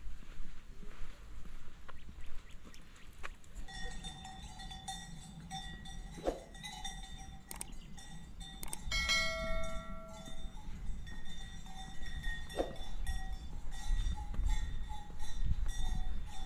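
Bells on grazing livestock clanking irregularly, several ringing together. The ringing starts about four seconds in.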